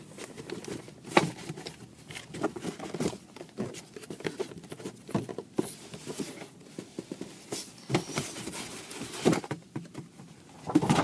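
Irregular taps, knocks and rustles of a cardboard doll box being handled close to the microphone, with louder bumps about a second in and near the end.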